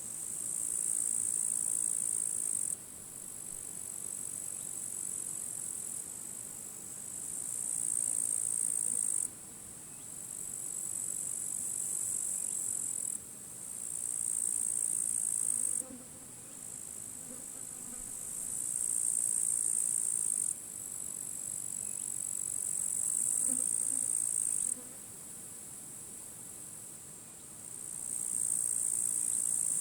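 Grasshoppers stridulating in dry grass: a high, buzzing chirr in phrases a few seconds long. Each phrase swells and then cuts off suddenly, and they follow one after another, with a faint rush of wind beneath.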